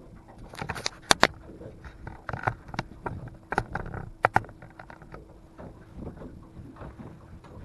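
Irregular sharp clicks and knocks as an angler fights and reels in a blue catfish from a boat, handling the rod and reel and moving on the deck. The loudest knocks come about a second in and again around four seconds, over a faint steady hum.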